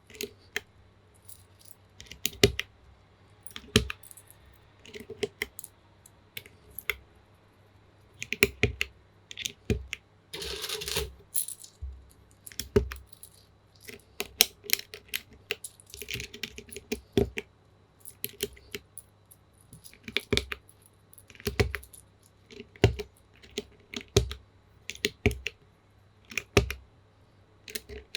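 Typing on a plateless 40% mechanical keyboard with a plastic case and lubed Gateron Pro Milky Yellow linear switches. Keystrokes come in uneven bursts with short pauses, and there are a couple of longer fast runs about ten seconds in.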